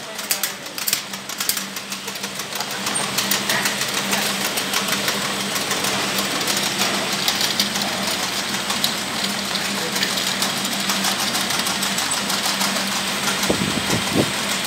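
Ten-head rotary screw capping machine running: a steady motor hum under fast, dense clicking and clattering.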